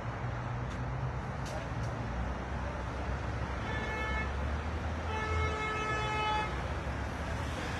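Steady traffic rumble with a vehicle horn honking twice: a short toot about four seconds in, then a longer honk of over a second just after five seconds.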